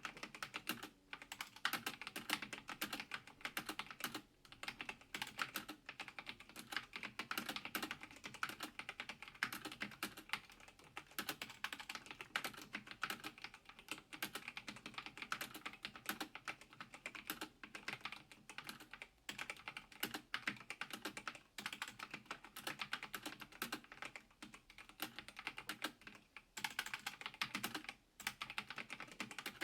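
Logitech G512 Carbon mechanical keyboard with GX Red linear switches being typed on: a fast, continuous run of keystrokes with a few brief pauses.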